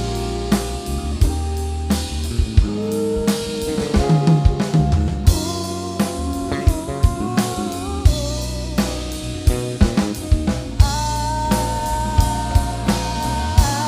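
Live band playing an instrumental stretch between sung lines: a steady drum beat under bass and melodic lead lines that move up and down in pitch.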